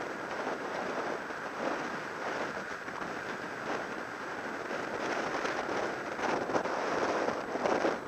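Wind rushing over a bike-mounted action camera's microphone, mixed with the hiss of road-bike tyres rolling on tarmac and irregular crackles from road vibration.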